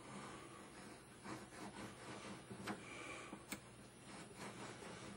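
Faint rubbing with a few light clicks as a brass aiglet blank is pressed and worked down around a mandrel on a wooden block.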